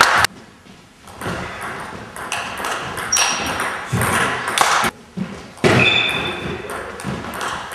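Table tennis rally: the celluloid ball clicking back and forth off the rubber bats and the table, with a few short high squeaks in between.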